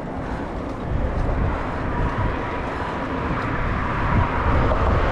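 Wind rumbling on the microphone while cycling, mixed with passing road traffic. A faint steady high whine comes in about two seconds in, and the noise swells near the end.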